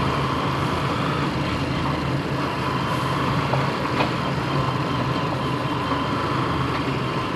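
Steady engine drone and wind and road noise from riding a motorcycle close behind a slow truck, with a low hum and a thin, high, steady whine over it. A couple of faint ticks come through about halfway.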